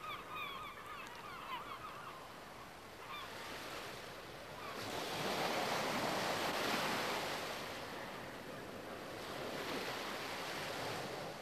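Sea waves washing and breaking in choppy water, swelling louder about halfway through. Seabirds call over the water in the first few seconds.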